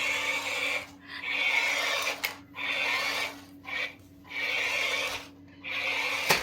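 Remote-control spider toy's small gear motor and legs running in about five bursts of roughly a second each, stopping briefly between them as it is driven from the remote.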